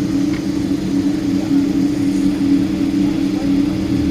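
Boeing 777-200 jet engines heard from inside the cabin, running steadily at low power with an even drone and two steady low tones.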